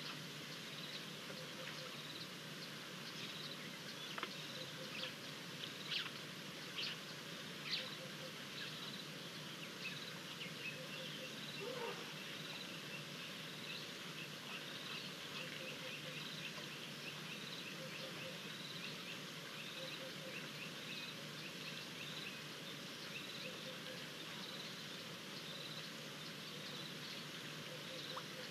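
Open-air bush ambience: a steady hiss with birds chirping. A few sharp high chirps come between about four and eight seconds in, then a long run of quick, evenly repeated short chirps.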